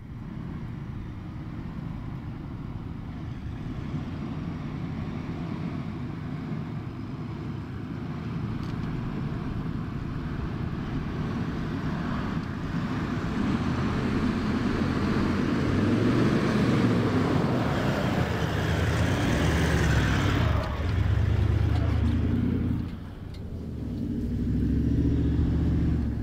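Toyota LandCruiser 79's V8 turbo-diesel engine running under way as the truck drives along a dirt track, with tyre and road noise over the engine note. The engine note shifts in pitch, the road noise builds and then falls away, and the whole sound dips briefly near the end.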